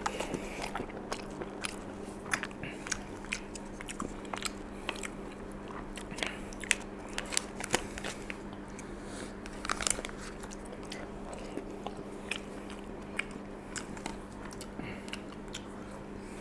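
Close-up eating: a person chewing and biting mouthfuls of lasagna, with short clicks and scrapes of a plastic spoon in an aluminium foil tray, over a steady low hum.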